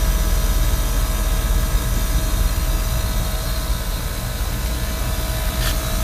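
Carrier packaged heat pump running in heat mode: steady noise of the compressor and outdoor fan heard close up inside the cabinet, with a constant hum tone over a deep rumble.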